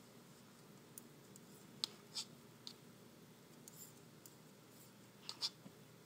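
Knitting needles clicking together as stitches are purled: a few faint, sharp clicks over a quiet background, two louder pairs about two seconds in and near the end.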